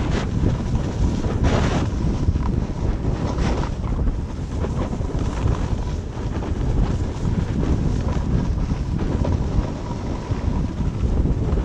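Wind buffeting a pole-mounted action camera's microphone while riding fast down a groomed snow slope, with the hiss and scrape of the board or skis on the snow swelling a few times in the first few seconds.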